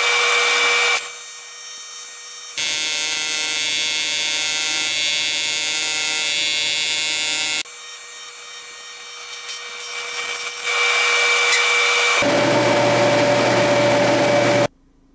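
AC TIG welding arc on aluminium from a PrimeWeld TIG 325X: a steady buzz with many overtones. Its pitch and tone change abruptly several times, and it cuts off sharply near the end.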